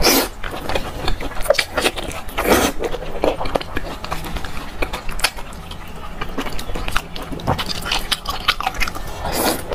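Close-up wet eating sounds: biting, chewing and sucking on soft, fatty braised pork intestinal fat (cockscomb oil), with many small mouth clicks. Louder slurping bursts come at the start, about two and a half seconds in, and just before the end.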